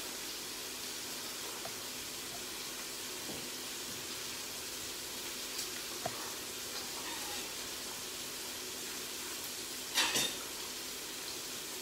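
A frying pan of lardons, onion and mushrooms sizzling steadily. A few soft clicks and one brief louder rustle about ten seconds in come from scallop shells and cabbage leaves being handled on a wooden board.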